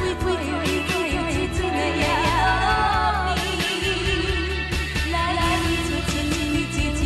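Chinese-language pop ballad: a singer's voice with vibrato over a full band accompaniment with a steady beat.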